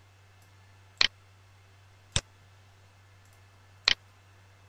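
Three sharp computer mouse clicks, one about a second in, one just past the middle and one near the end, over a faint steady low hum.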